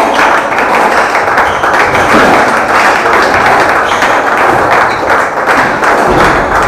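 A squash rally: the ball thuds and taps off rackets and the walls over a dense wash of crowd noise with clapping.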